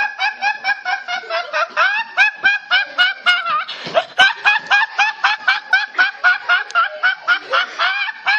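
A young man laughing hard in a long run of high-pitched, squealing bursts, about four a second, with a short break for breath about four seconds in.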